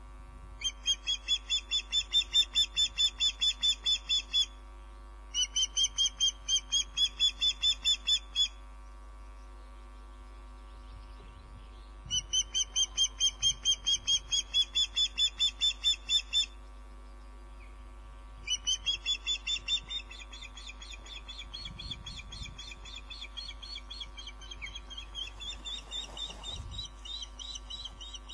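Osprey calling: runs of rapid, high whistled chirps, about four a second, each lasting a few seconds with short pauses between, then a quieter, unbroken run of chirps in the last third. A steady low hum lies beneath.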